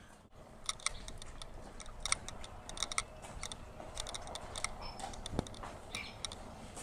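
Footsteps of several people walking on a hard patio floor: an irregular run of short, sharp clicks, with a duller knock about five seconds in.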